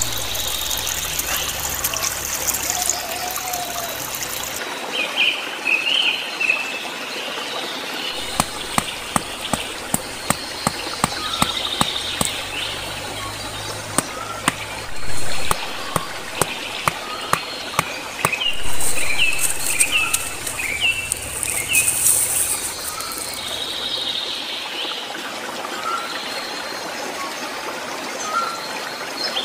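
Birds chirping over a running stream. Through the middle comes a series of sharp knocks, about two a second, from wood being struck.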